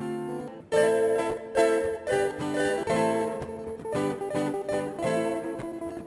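Background music of plucked string notes in a steady run of several notes a second.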